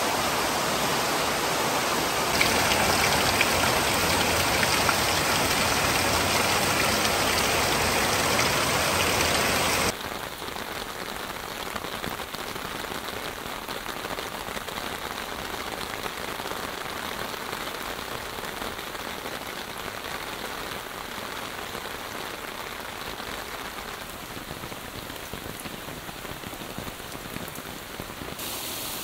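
Heavy monsoon rain pouring down on leaves, a dense steady hiss. About ten seconds in it cuts abruptly to quieter, softer rain.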